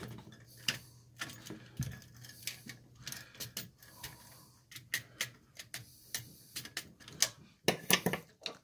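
Irregular small metal clicks and scrapes of needle-nose pliers hooking copper wire around the terminal screws of a GFCI receptacle, over a low steady hum.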